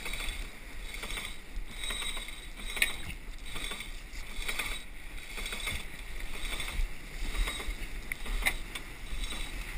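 Wind and water rushing past a sailing yacht's hull under way in ocean swell, with scattered short knocks and rustles.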